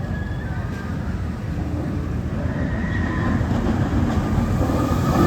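Roller coaster train rumbling along its track, growing louder toward the end.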